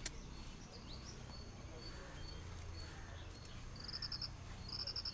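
Crickets chirping: short trains of rapid, high-pitched pulses, repeated every second or so, with a steady low rumble underneath. A single sharp click comes right at the start.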